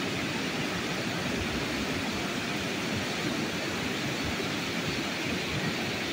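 Steady rushing of a rain-swollen river in flood, its muddy water churning over rapids.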